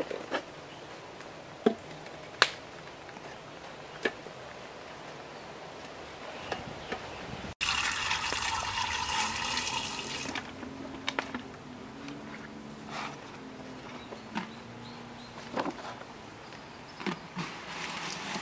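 A few sharp knocks as bamboo tubes are set into a glazed clay jar, then water poured into the jar in two streams, splashing onto the tubes, loudest for about three seconds just before the middle. Quieter knocks and handling follow.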